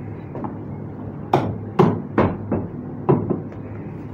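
Meat cleavers chopping lamb on wooden log chopping blocks: about six sharp chops at an uneven pace, several in quick succession in the middle.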